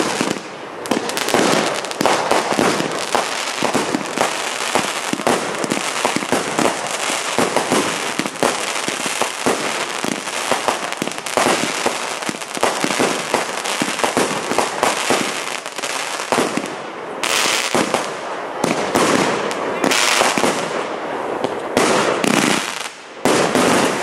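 Consumer firework cake barrage firing a rapid, dense run of shots and bursts, one after another with barely a gap. Near the end there is a brief lull before the firing resumes.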